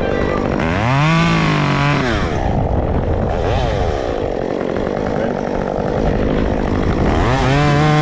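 Stihl chainsaw revving up and cutting tree limbs. The engine pitch rises about half a second in and drops back around two seconds, runs on through the middle, and rises again near the end.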